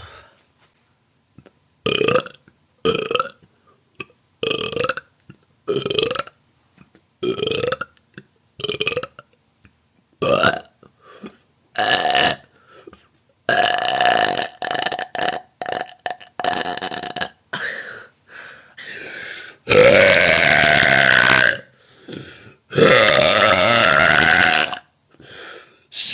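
A young woman belching on purpose, one burp after another: about eight short burps roughly a second or so apart, then a few longer ones, and near the end two long, loud burps that bend in pitch.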